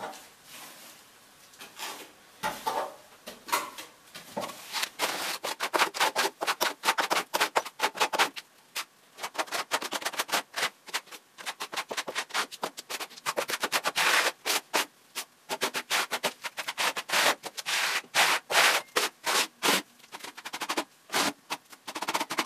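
Steel plastering trowel scraping a lime-based skim coat across a wall during a second skim coat over cork insulation, in quick repeated strokes. Only a few scrapes at first, then steady strokes, several a second, from about four seconds in.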